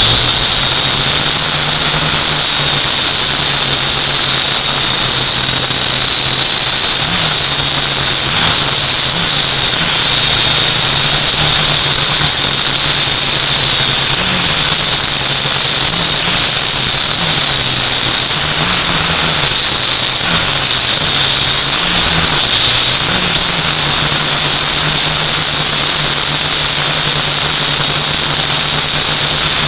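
Quadcopter drone's electric motors and propellers whining loudly and steadily. The pitch wavers up and down briefly many times through the middle as the throttle changes.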